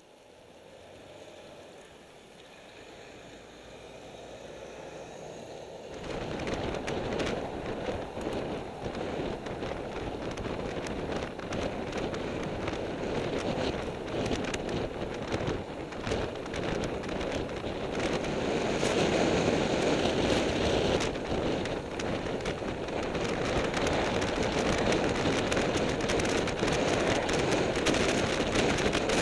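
Wind buffeting the microphone of a camera on a road bike moving at speed, mixed with tyre and road rumble and crackle. It is faint at first, becomes much louder about six seconds in, and keeps building toward the end.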